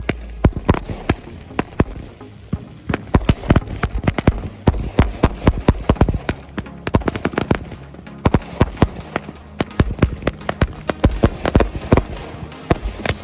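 Consumer fireworks going off in a rapid, irregular string of sharp cracks and pops, often several a second.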